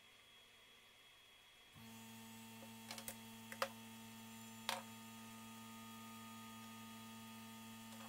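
A low, steady electrical hum switches on abruptly about two seconds in. Over it come a few sharp plastic-and-metal clicks and knocks as quick-release bar clamps are handled against the aluminum track.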